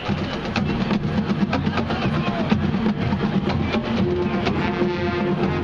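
Marching band music starting up: drums and percussion play a quick beat, with sustained brass tones joining about four seconds in.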